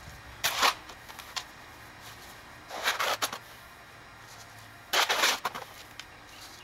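Steel shovel scooping concrete out of a wheelbarrow and tipping it into a post hole: three gritty scrapes about two seconds apart.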